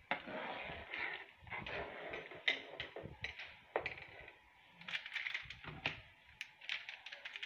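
A metal spoon stirring broth in an aluminium pot: sloshing, with scattered clinks and scrapes of the spoon against the pot.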